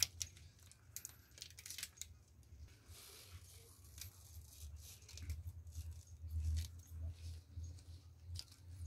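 Faint clicks, snips and soft tearing of fresh oyster mushroom clusters being picked from grow bags and broken apart by hand, with a low steady hum underneath.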